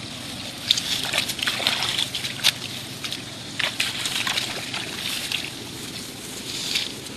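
Water sloshing and splashing in irregular bursts, the sharpest splashes about a second in and about two and a half seconds in.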